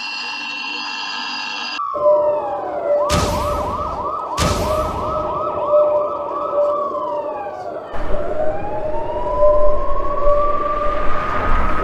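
A steady, buzzing alarm tone for about the first two seconds, then emergency-vehicle sirens: falling sweeps, a fast yelp with two short loud bursts of hiss, then a slow wail rising and falling near the end, over a steady held tone.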